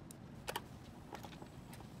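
A few light clicks and taps of small metal parts, screws and brackets, being handled on the module's metal frame. The clearest comes about half a second in.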